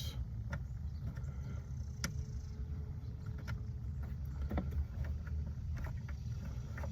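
A few faint, scattered clicks and taps from a 1/4-inch socket ratchet driving screws into a plastic part, over a steady low background rumble.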